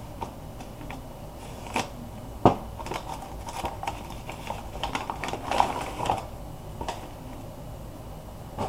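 Cardboard shipping box being cut open with a sharp knife and handled: scattered clicks and scrapes, a sharper knock about two and a half seconds in, and a busier stretch of scraping and rustling a little after halfway.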